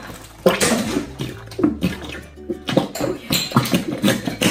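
Background music, the same track that plays through the wordless stretch before and after.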